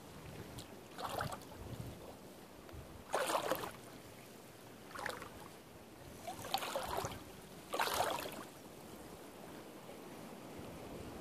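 Water splashing and lapping in about five short, irregular bursts over a faint steady hiss.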